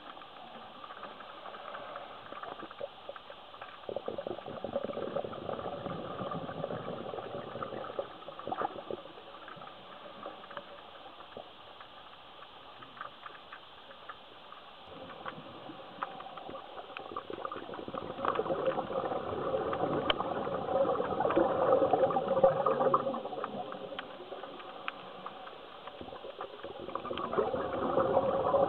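Scuba diver breathing through a regulator, heard underwater: exhaled bubbles gurgle out in spells that swell and fade several times, the longest and loudest about two-thirds of the way through.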